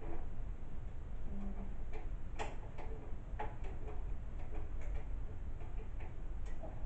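Irregular light clicks and taps of small computer parts and tools being handled during disassembly, a few scattered across several seconds, the sharpest about two and a half seconds in, over a low steady rumble.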